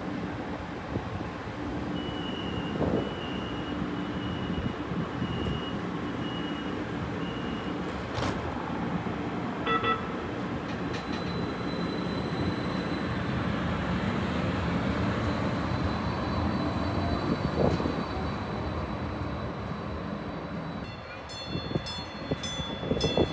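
Light rail train running at a station platform: a steady hum from the train, with a run of evenly spaced high beeps from about two to eight seconds in and a short chime about ten seconds in. Near the end the hum drops and higher tones and clicks come in.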